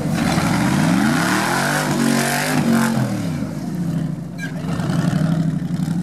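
Off-road trial buggy's engine revving under load as it climbs out of a ditch. The note rises for about two seconds, falls back, then settles to a steady run for the last couple of seconds.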